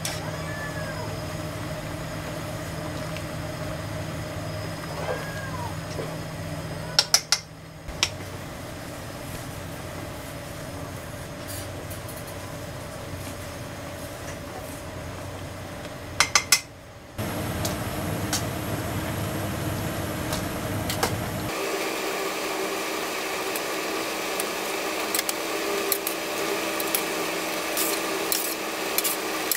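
A big aluminium pot of cavatelli at a rolling boil on the stove, with two brief clatters of chopsticks against the pot. About two-thirds of the way through, it gives way to tomato sauce bubbling and sizzling in a frying pan.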